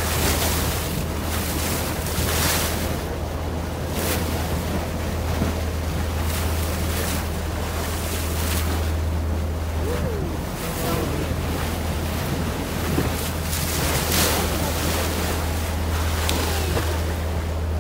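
Boat under way at sea: water rushing and splashing along the hull in repeated swells over a steady low hum, with wind buffeting the microphone.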